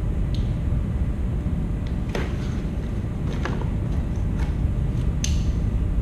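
A cardboard box being opened by hand: a handful of short scrapes and clicks as its flaps and tape are pulled open, over a steady low rumble.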